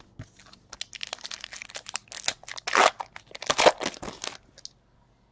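Foil wrapper of a trading-card pack being torn open and crinkled by hand: a run of crackling rustles that stops shortly before the end.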